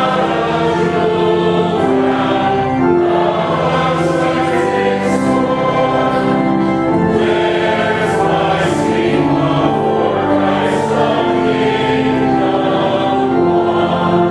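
Choir singing in several parts, with long held notes.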